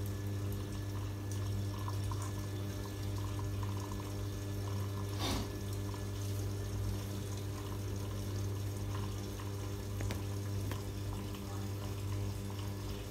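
Samsung top-load washing machine filling, water running steadily into the tub over a steady low hum. The washer is powered and working again after a replacement power supply.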